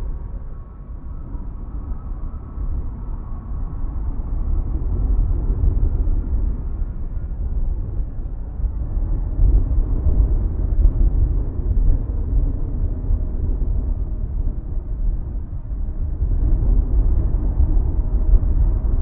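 Airbus A320neo's Pratt & Whitney PW1100G geared turbofan engines running: a deep rumble with a faint steady whine, growing louder over the first few seconds and then holding steady.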